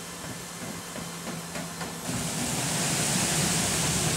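Running noise of a C-17 Globemaster III on the ground: a steady hum with a few light clicks, then about two seconds in a much louder, even rushing noise comes in and holds.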